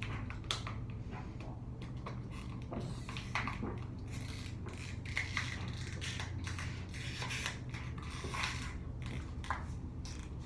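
Small plastic water bottle crackling and crinkling irregularly as it is squeezed in the hands while being chugged, over a steady low hum.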